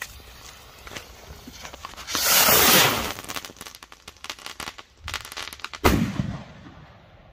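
Funke Gigant salute rocket launching with a loud rushing hiss, then a couple of seconds of rapid crackling as it climbs. Near the end comes a single sharp bang, the loudest moment, with an echo rolling after it.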